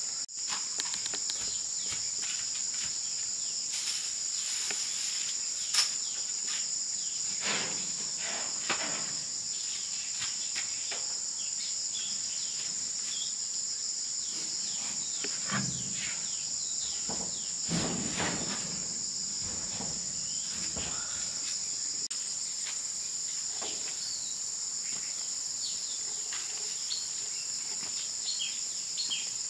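Steady high-pitched insect chorus, with scattered light knocks and a sharp click about six seconds in. Short bird chirps come near the end.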